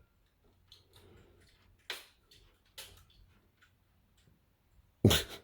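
A few faint, separate clicks, then a short louder sound near the end.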